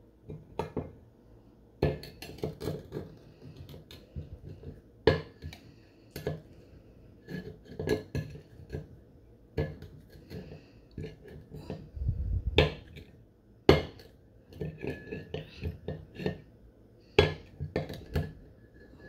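The rim of a large upturned glass knocking and scraping on a ceramic plate as it is twisted in thick chamoy, giving irregular clinks and knocks, with one dull low thump a little past the middle.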